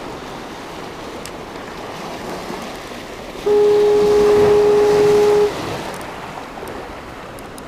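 Surf washing against jetty rocks, and about halfway through a single steady horn blast, one even tone about two seconds long that starts and cuts off abruptly.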